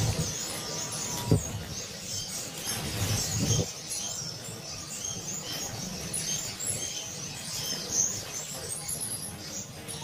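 Caged parrot finches calling with many short, high, thin chirps, with wing flutters as birds hop and fly between perches. Low bumping runs through the first few seconds, and a sharp knock comes about a second in.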